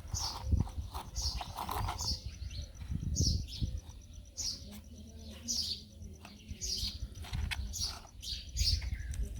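Small bird chirping over and over, short falling notes about once a second, over a low steady rumble.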